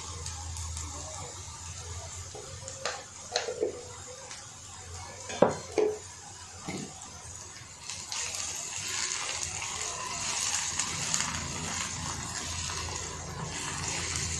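Onions and curry leaves sizzling in hot oil on a flat tawa, with a few sharp knocks in the first half. From about eight seconds in a spatula stirs and scrapes them across the pan and the sizzle grows louder.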